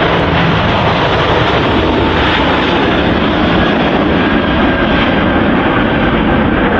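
Airbus A380-800's four jet engines running at takeoff thrust: a loud, steady noise that holds level throughout.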